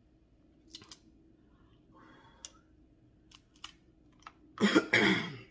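Faint scattered clicks and smacks of eating crab at the table, then a short, louder vocal sound near the end.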